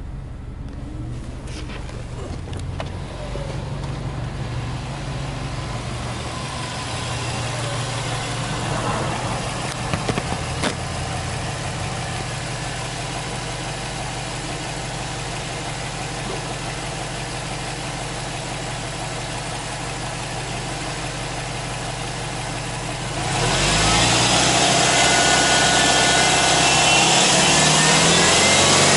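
Subaru Impreza WRX STI E-type's turbocharged flat-four (boxer) engine idling steadily. A few clicks come around ten seconds in. About 23 seconds in the sound suddenly gets louder and fuller, with the engine note lifting slightly.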